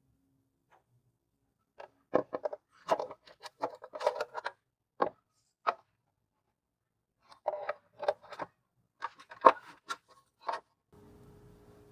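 Irregular clusters of short metallic clicks and knocks from hand work on the engine's underside as the upper oil pan is fitted into place. A faint steady hum with one tone comes in near the end.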